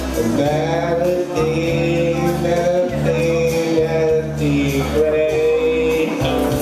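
A man singing into a handheld microphone over instrumental accompaniment, the voice holding and sliding between notes over a steady bass line, heard through a PA system.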